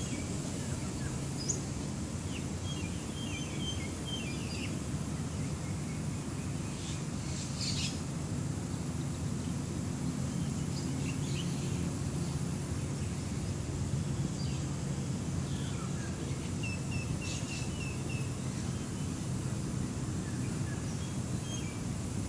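Open-air ambience: birds chirping now and then, once in a quick run of about five chirps, over a steady low rumble.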